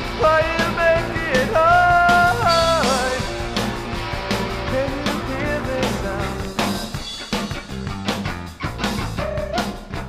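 A 1988 indie rock record playing: a band with guitar and drums, with a long held note over the first few seconds.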